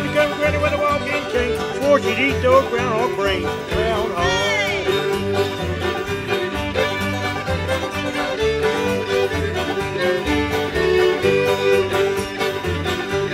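Live string band playing an instrumental dance tune: fiddles carry the melody, with a slide about four seconds in, over banjos, guitar and an upright bass keeping a steady beat.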